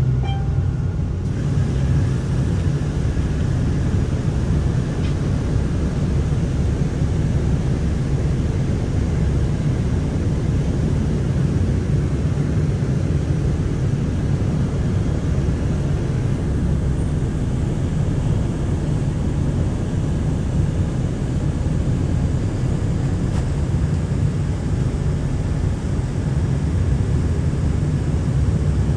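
City bus running along the road, heard from inside the cabin: a steady low engine and road rumble.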